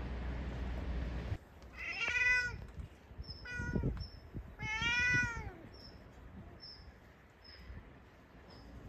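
Tabby cat meowing three times: two drawn-out meows with a short one between them. Before the calls, a steady low rumble cuts off abruptly.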